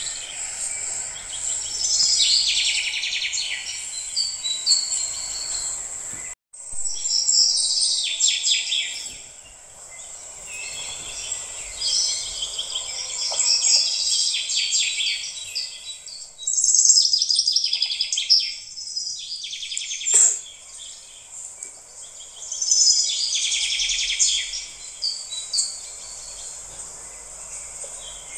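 Birds chirping and twittering in quick trills, several overlapping calls coming and going in clusters, with a brief cut to silence about six seconds in.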